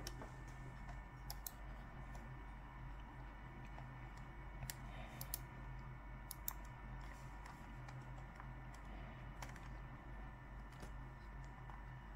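Several small, sharp clicks and taps at irregular intervals, as of handling small plastic parts, over a steady low hum.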